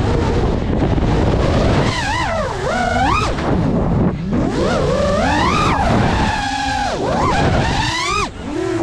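FPV quadcopter's motors whining, the pitch rising and falling several times as the throttle is pushed and cut through dives and turns, with a brief dip near the end.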